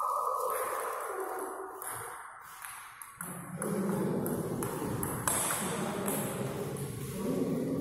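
Table tennis rally: sharp clicks of the celluloid ball struck by paddles and bouncing on the table. A steady high tone cuts off about two seconds in.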